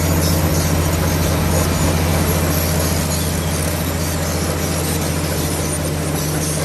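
Heavy diesel engine of a Komatsu D65PX crawler bulldozer running steadily under load, a deep, even drone.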